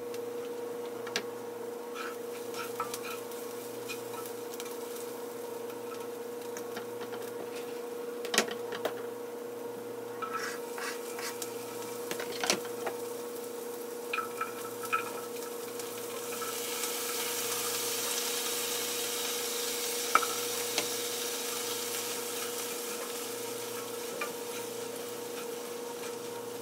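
Shallot and garlic frying in butter in a sauté pan, with occasional sharp clicks of a spatula against the pan. After chopped tomatoes and chickpeas go in, the sizzle grows louder and hissier from a little past halfway. A steady hum runs underneath.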